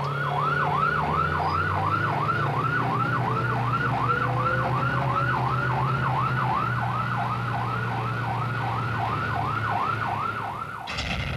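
Carmichael Corvus 6x6 airport crash tender's American-style warbler siren, a fast wail sweeping up and down about three times a second, over the steady drone of the vehicle's engine. It cuts off suddenly near the end.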